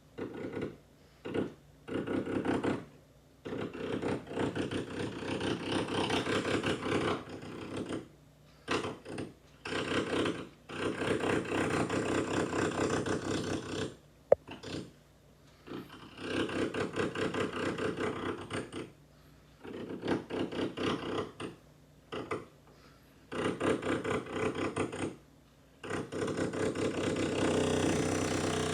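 Electric drill run in repeated bursts, switched on and off over a dozen times, each run lasting from a fraction of a second to about three seconds, with one sharp click about halfway through.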